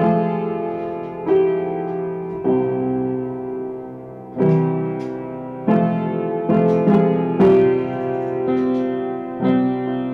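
Solo piano improvisation: slow, sustained chords struck at uneven intervals of about one to two seconds, each ringing on and fading before the next.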